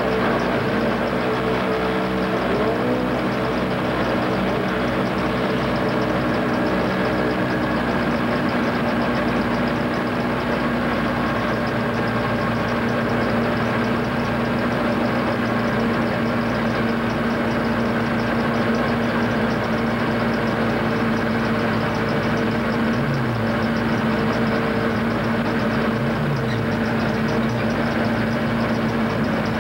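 Race truck's engine idling steadily, heard from inside its cab, with no revving.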